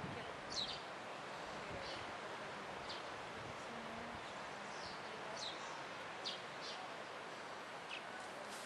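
Small birds chirping, with short high notes that drop in pitch, about one a second, over a steady outdoor background hiss.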